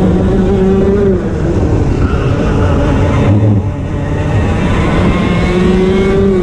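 125cc two-stroke TAG kart engine heard on board, running at high revs, then easing off about a second in, lowest around the middle, and revving back up near the end as the driver gets back on the throttle.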